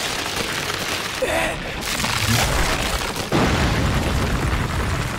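Cartoon sound effects of giant trees erupting from the ground: a continuous rumbling, crashing roar of splitting rock and flying debris, with a heavier boom about three and a half seconds in.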